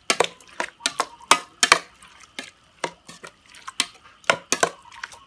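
A metal spoon stirring sliced pods in a metal pot, clinking and scraping against the pot's wall with irregular sharp clinks, a few a second.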